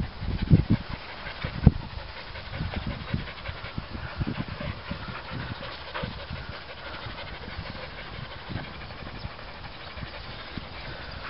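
Dogs panting and moving about, with a few low thumps in the first couple of seconds over a steady hiss.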